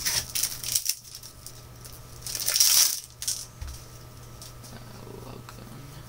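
Match Attax card packet's wrapper rustling and being torn open, with a loud crinkling burst about two and a half seconds in, then a few light clicks as the cards are handled.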